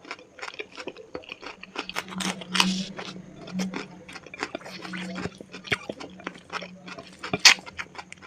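Close-miked chewing and biting of chicken curry with rice, chili and onion: wet mouth clicks and crunches in quick, irregular succession, the loudest crunch about seven seconds in. A low steady hum runs underneath.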